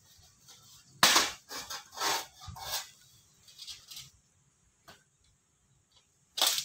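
Thin sheet-metal elbow segments for insulation jacketing clanking and knocking as they are handled and fitted together: a string of sharp metallic knocks, loudest about a second in and again near the end.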